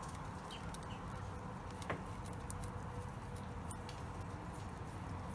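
Small clicks and light rustling of wires and push-on connectors being handled and plugged onto a winch solenoid's terminals, over a faint steady low hum. The sharpest click comes about two seconds in.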